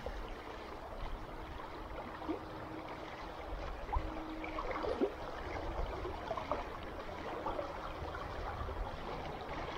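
Swift river current rushing and gurgling steadily.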